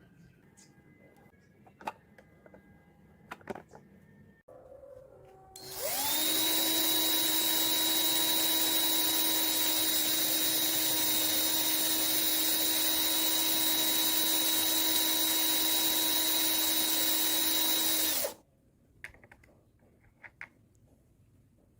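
A few light clicks, then a small electric motor spins up about five seconds in, runs steadily with a high whine for about twelve seconds, and cuts off suddenly, followed by more faint clicks.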